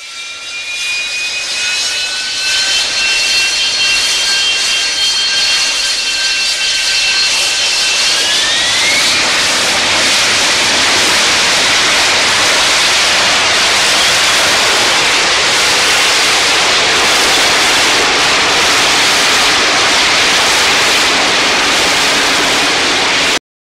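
A jet engine spooling up: a high whine that rises about eight seconds in and turns into a steady, loud rushing roar, which cuts off abruptly near the end.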